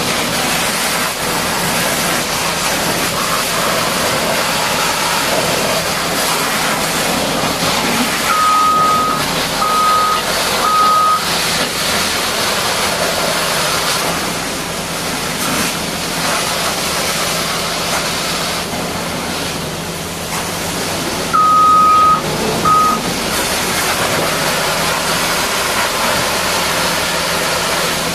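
Steady hiss of a high-pressure water jet washing a Caterpillar D6R bulldozer, with heavy machinery running underneath. A single-pitch electronic beep sounds three times in short, uneven tones about eight seconds in, and twice more a little past the middle.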